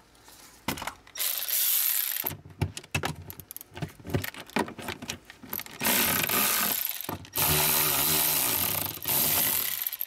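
Cordless electric ratchet running in several short bursts, its motor whining, as it undoes the mounting nuts of a car's electronic control module. Clicks and rattles of handling come between the bursts, and the longest run is near the end.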